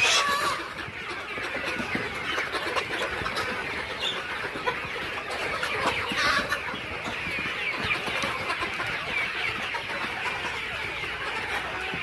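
A flock of ten-week-old layer pullets clucking and chirping, many birds at once, steady throughout. Two short louder bursts of noise stand out, one at the very start and one about six seconds in.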